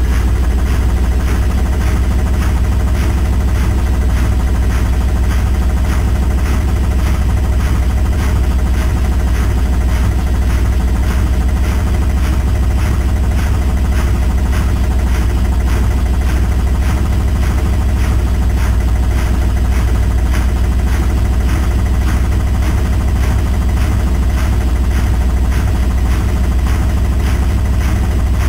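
Indesit WILL85 washing machine on its spin cycle: the drum spinning at steady high speed with a loud low hum and a fast, even pulsing.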